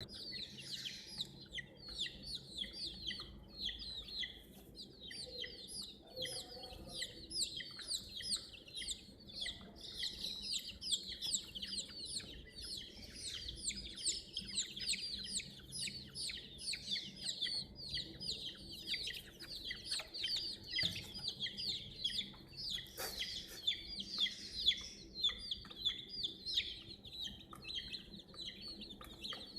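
Many chicks peeping continuously, rapid overlapping high cheeps, with a couple of sharp knocks about two-thirds of the way through.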